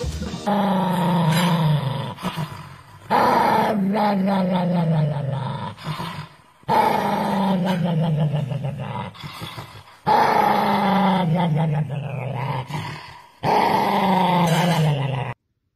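A dog growling with bared teeth while its muzzle is handled: five long growls of about three seconds each, each sliding down in pitch, the last cut off abruptly.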